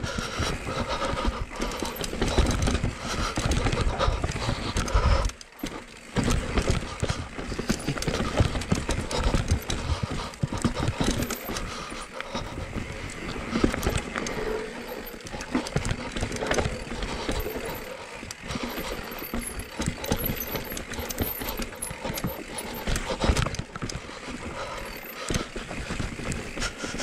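Enduro mountain bike descending a dirt forest trail: tyres rolling and scrabbling over dirt, roots and rocks, with a constant uneven rattle and knocking from the bike over the bumps.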